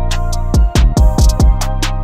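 Background music with a beat: deep bass-drum hits that drop in pitch, over a steady low bass line and sharp hi-hat ticks.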